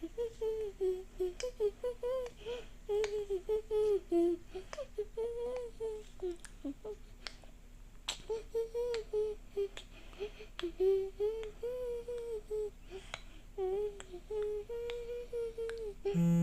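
A voice humming a wandering, up-and-down tune in short phrases, with sharp clicks scattered through it.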